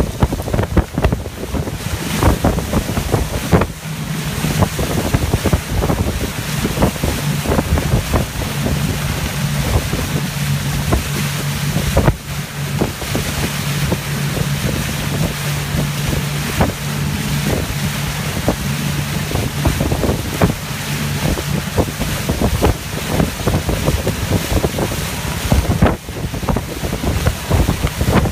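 Motorboat underway towing a tube: wind buffeting the microphone over the boat's steady engine hum and the rushing wash of its wake.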